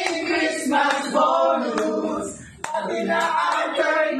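Several people's voices singing together, with a few sharp claps.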